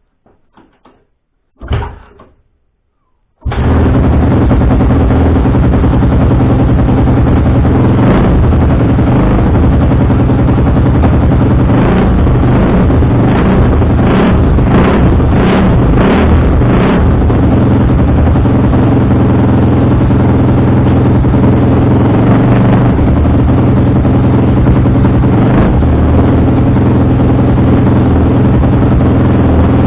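Suzuki RM-Z250's 250 cc four-stroke single-cylinder engine, freshly rebuilt after a full overhaul. After a short thud it starts about three seconds in, then runs steadily at idle.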